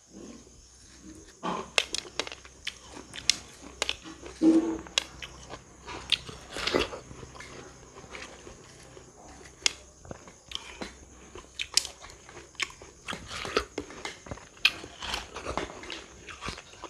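A person biting and chewing crisp raw fruit close to the microphone: irregular wet crunches and crackles with mouth sounds in between.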